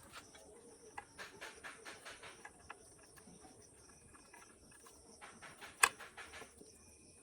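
Light clicks and taps from handling and fitting a motorcycle headlight unit and its parts, in two clusters, with one sharp, louder click about six seconds in.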